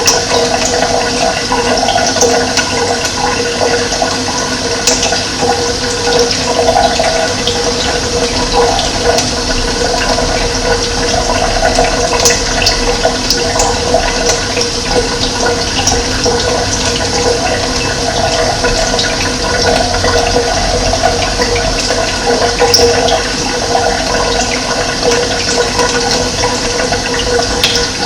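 Running water flowing steadily, a continuous rushing and gurgling, with scattered brief high-pitched ticks over it.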